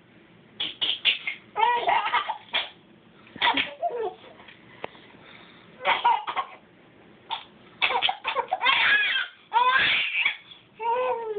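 A baby laughing in short bursts, about seven times over, with quiet gaps between.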